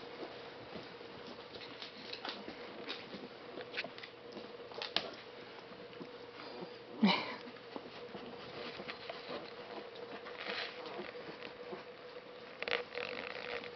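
Shiloh Shepherd puppies and an adult dog moving about on a wooden floor: light, scattered clicking and pattering of claws and paws. A sharp louder noise comes about halfway through, over a faint steady hum.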